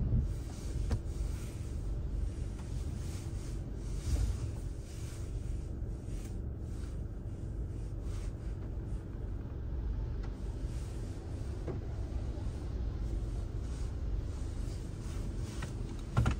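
Car driving: a steady low rumble of engine and tyres on the road, with a bump about four seconds in and another near the end.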